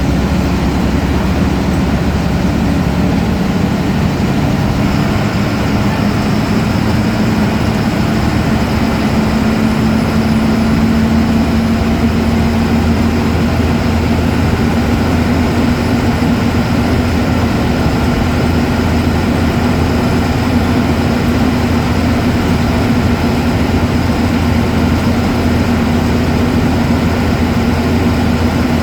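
Ashok Leyland BS4 diesel bus engine running steadily with a heavy low drone that rises a little in pitch around ten seconds in. A faint high turbo whistle climbs slowly above it.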